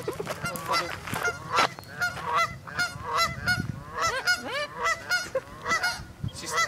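Goose honking in a rapid, continuous series of short calls.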